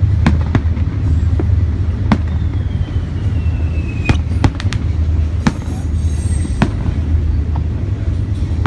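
Fireworks going off in a string of sharp, irregularly spaced bangs, about ten in all. From about two seconds in, a whistle slowly falls in pitch and ends in a bang around four seconds in. A steady low rumble runs underneath.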